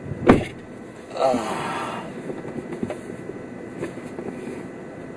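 Road and engine noise inside a moving car, with a sharp knock about a quarter of a second in and a short sound with a wavering pitch about a second in.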